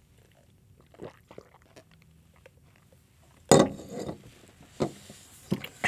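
Two men chugging glasses of eggnog mixed with blue sports drink: faint gulping, swallowing and small glass clicks, then a sudden loud sound about three and a half seconds in, followed by a few smaller knocks.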